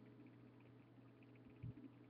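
Near silence: a steady low electrical hum of the recording, with one soft low bump about one and a half seconds in.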